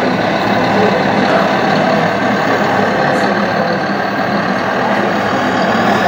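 Steady engine sound of a scale RC tipper truck climbing under load, over a constant din of hall noise.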